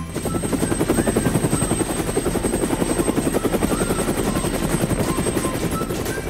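Cartoon helicopter sound effect: a fast, steady rotor chop as the toy helicopter lifts off.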